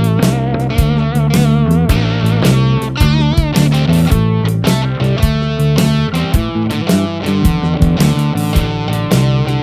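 Background music: an electric guitar-led instrumental track with bass and a steady beat, one guitar note bent about three seconds in.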